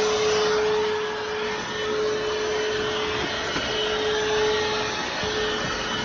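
Hoover H-FREE 100 cordless stick vacuum running: a steady motor whine over the rush of air.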